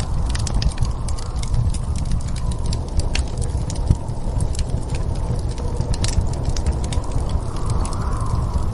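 Wood fire crackling with frequent sharp pops over a steady low rumble of storm wind, which swells briefly at the start and again near the end.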